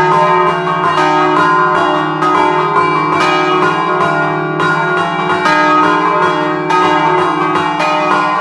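Three-bell De Poli church bell set, cast in 1947 and tuned in E-flat, swinging high in Friulian full-swing style. The clappers strike several times a second in a continuous, overlapping peal, heard right beside the bells in the belfry.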